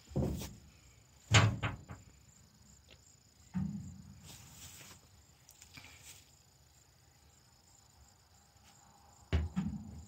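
A few separate knocks and rattles against a corrugated metal sheet wall: one at the start, the loudest about a second and a half in, one at about three and a half seconds, and a short cluster near the end as a cordless drill is set against the sheet.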